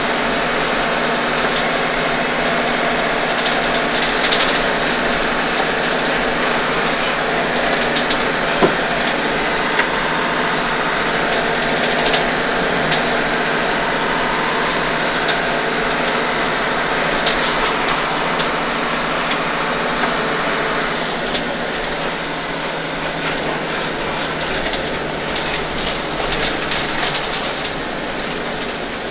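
Steady engine and road noise heard from inside a moving vehicle, with scattered light clicks. The noise eases a little about two-thirds of the way through.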